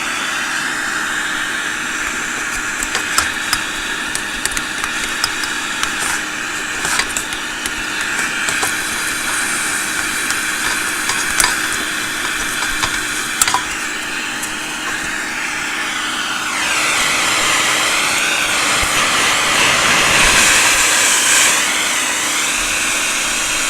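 Vacuum cleaner running steadily while it sucks dust off a radio's push-button assembly, with scattered sharp ticks. From about two-thirds of the way in it gets louder and its pitch wavers up and down as the airflow changes.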